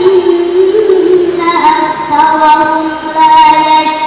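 A young girl reciting the Qur'an in melodic tartil style into a microphone. She holds long, gently ornamented notes, and a new phrase begins about a second and a half in.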